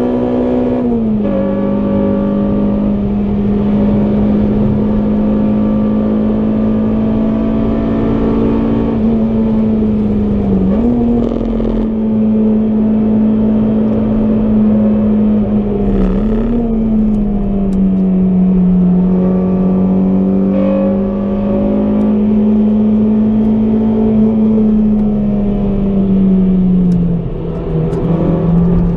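EP3 Honda Civic Type R's 2.0-litre i-VTEC four-cylinder engine heard from inside the cabin, held at high revs under load with road and tyre noise underneath. The pitch stays nearly steady, steps down about a second in, dips briefly twice in the middle, and falls near the end.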